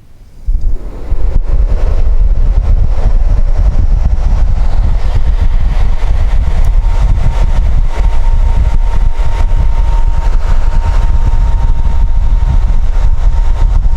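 Mercedes W109 heater blower motor switched on about half a second in, spinning up and then running steadily and loudly with a rush of air and a faint steady whine. The motor has been rebuilt, its previously seized bottom bearing re-staked and lubricated, and it runs freely with nothing wrong.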